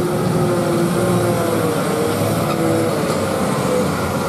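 Loaded lorry's diesel engine pulling under load as the truck crawls over a rutted mud road; the engine note rises a little about two seconds in and falls back.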